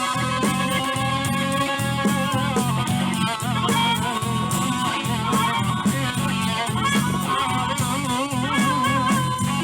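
Live blues band playing: a lead line of long held notes with a wavering vibrato over a steady bass and drum beat.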